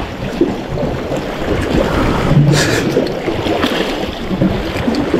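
Wind buffeting the microphone over the wash of sea waves on the shore, with a brief louder hiss about two and a half seconds in.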